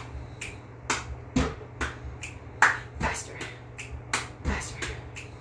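Drumsticks struck in a steady rhythm: sharp clicks of stick against stick, about two a second, with a few duller, heavier thuds of the sticks on an exercise ball.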